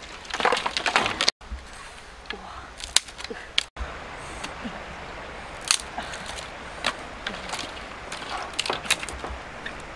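Knife cutting and splitting bamboo sticks: a quick run of sharp cracks and snaps, then single cracks every second or so.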